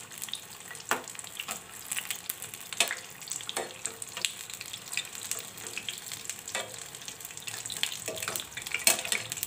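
Onion pakoras deep-frying in hot oil: a steady sizzle with many sharp crackles and pops while a slotted metal spoon turns them.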